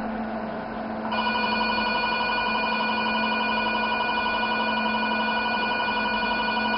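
Velure S5 532 nm diode laser's emission tone: a steady, even beep with several overtones that starts about a second in and holds while the green beam is fired, the sign that the laser is emitting. A steady low hum runs underneath.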